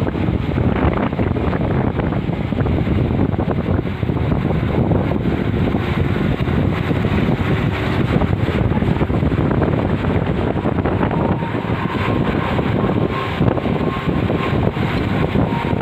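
Bus running steadily on a winding mountain road, with engine and road noise mixed with wind buffeting the microphone at an open window.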